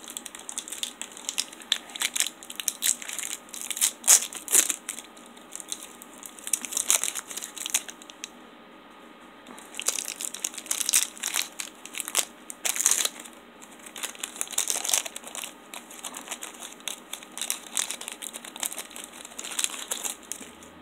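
A printed plastic nougat-bar wrapper crinkling in irregular bursts as it is worked open, with a couple of short pauses.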